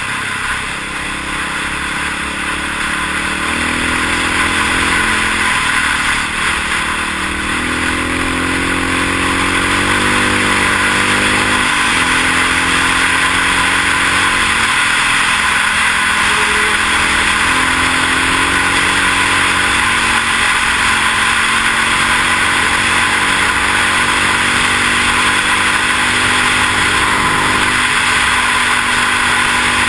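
Honda XR650 single-cylinder four-stroke dirt bike accelerating at speed, its pitch climbing and dropping back at two upshifts in the first twelve seconds or so, then holding steady at cruising speed. Steady wind rushes over the microphone throughout.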